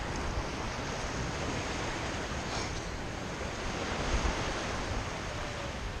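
Small surf washing steadily onto the beach, with wind on the microphone.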